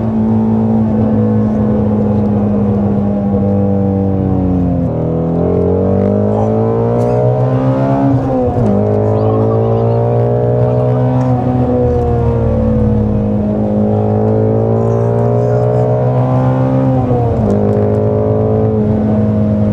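Ford Mustang Shelby GT350's 5.2-litre flat-plane-crank V8 being driven hard. The engine note climbs under acceleration, falls away about five seconds in as it lets off, and drops sharply at upshifts about eight and a half seconds in and again near the end.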